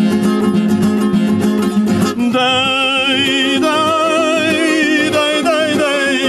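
Music: an instrumental passage in a Russian ballad, strummed guitar under sustained notes, with a melody of long, wavering notes entering about two seconds in.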